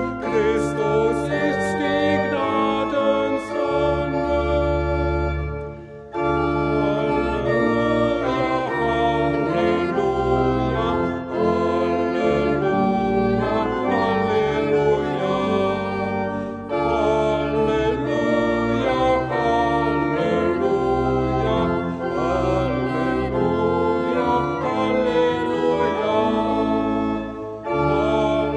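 Church pipe organ accompanying a woman and a man singing a Halleluja hymn, with a short break about six seconds in.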